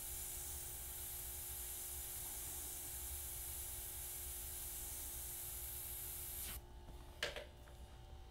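Gravity-feed dual-action airbrush spraying with a steady high hiss that cuts off about six and a half seconds in. A single short tap follows about half a second later.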